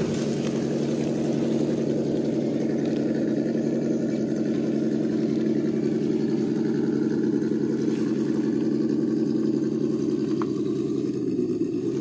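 Radio-controlled scale crawler driving slowly, its motor and gear drivetrain giving a steady, even hum under throttle that drops away at the very end.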